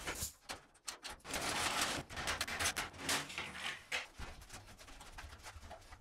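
Wire mesh being handled and fitted onto a wooden frame: sharp clicks with stretches of rustling, scraping noise.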